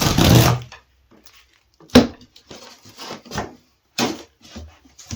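Wooden board being worked loose from a display table's frame: a rough noise at the start, a sharp knock about two seconds in, then a few lighter knocks. The board is tightly fitted in the frame.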